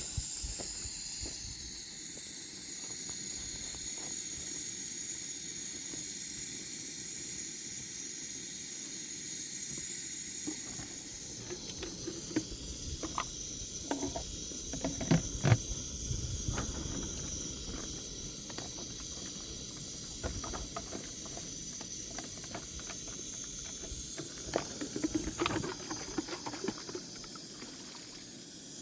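A steady high-pitched hiss throughout, with scattered knocks and clatters beginning about a third of the way in, the loudest near the middle and again near the end.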